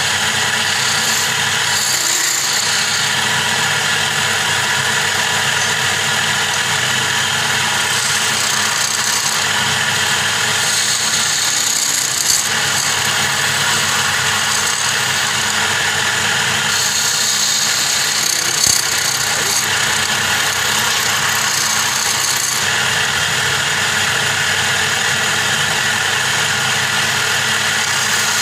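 Wood lathe motor running steadily while a hand-held turning chisel cuts a spinning wooden spindle, a hiss of cutting that comes and goes as the tool is worked along the wood.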